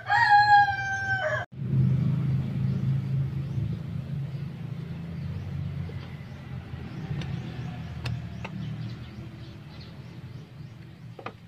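A rooster crowing, one long call that cuts off suddenly about a second and a half in. After it comes a steady low rumble with faint high bird chirps.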